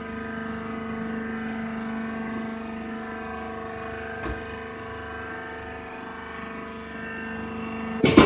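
Hydraulic baling press running, its hydraulic pump motor giving a steady hum, with a light click about four seconds in and a sharp knock near the end.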